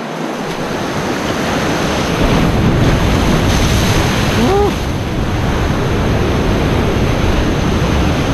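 Ocean surf breaking and washing over a rock ledge, a loud steady rush of whitewater that builds over the first couple of seconds, with wind buffeting the microphone.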